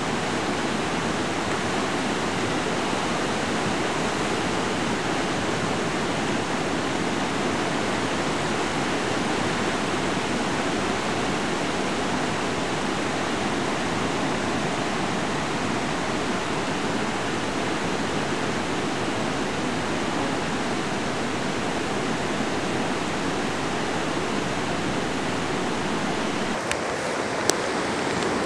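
Fast floodwater rushing and churning over a flooded street, a steady, unbroken noise of moving water. Near the end there are a few sharp clicks.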